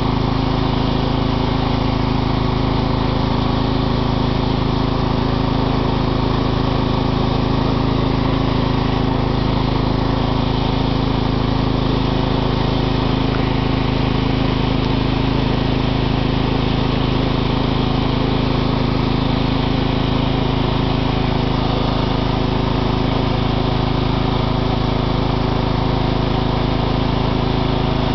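Craftsman riding lawn mower's engine running steadily at an even speed.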